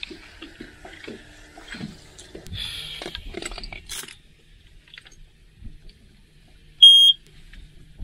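Light handling clatter on the boat, then one short, loud, high-pitched beep about seven seconds in as the console electronics are switched on before starting the outboard.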